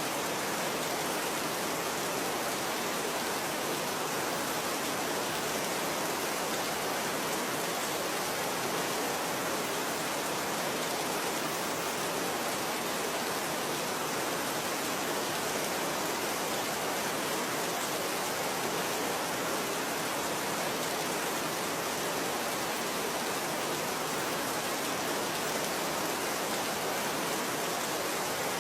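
Steady, even rain with no separate drops standing out and no change in level.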